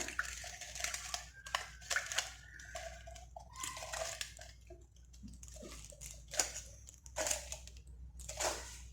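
Irregular scraping and clicking of a utensil against a pot as milk is stirred into a cream mixture.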